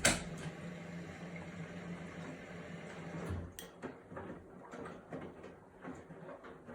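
Samsung WW80TA046AX front-loading washing machine running with a steady low hum, a sharp knock at the start and another a little over three seconds in, then a string of irregular clicks and knocks: the horrible noise of a fault in the machine.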